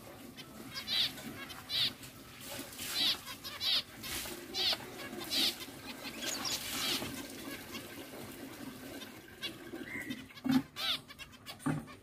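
Zebra finches giving short nasal, beeping calls, one or two birds at a time, roughly one call a second with some in quick runs. A couple of sharp knocks near the end.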